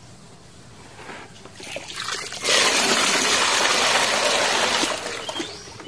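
A thick stream of water pouring into a plastic toy dump truck's bed and splashing over it. It builds up about two seconds in, runs steady and loud, then eases off near the end.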